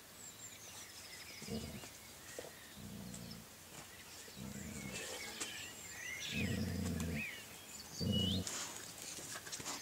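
Golden retriever puppy and adult dog growling in play over a rope toy: about five short low growls, the longest lasting nearly a second a little past the middle.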